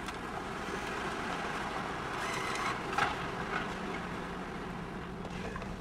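Car engine idling, heard from inside the car, a steady low hum. About two to three seconds in, a brief faint whir and a click as the pay kiosk's bill acceptor draws in a banknote.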